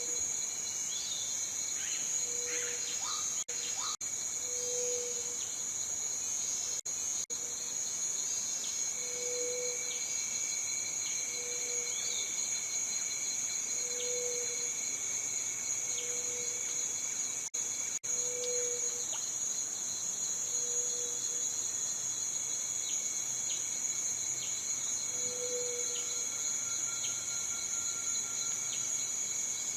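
Cicadas singing in a continuous, steady, high-pitched buzz that drops out for an instant a few times. Behind it are short, low calls about every two seconds and faint bird chirps.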